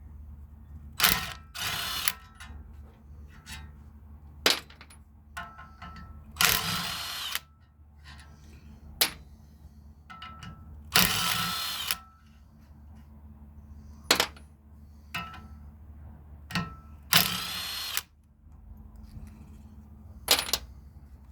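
A power tool, such as a drill or impact driver, running in short bursts of about a second, four times, while working on brass valves being taken apart. Sharp metal clicks and knocks come between the bursts.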